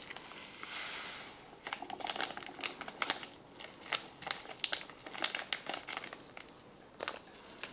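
Sugar packets being torn open and their packaging crinkled. A short hiss of noise comes about a second in, then a run of sharp crinkles and clicks.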